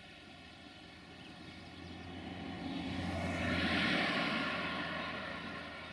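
Steady multi-tone hum of a quadcopter drone's propellers, with a passing vehicle swelling up, loudest about four seconds in, then fading away.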